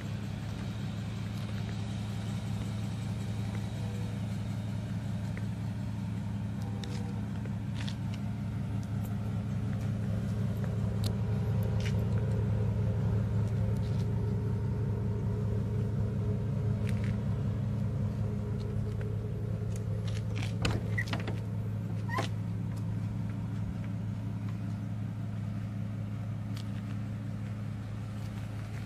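Ford E450's 6.8-litre gas V10 idling with a steady low hum that grows a little louder midway. About twenty seconds in, a short cluster of latch clicks and knocks as the rear door is opened.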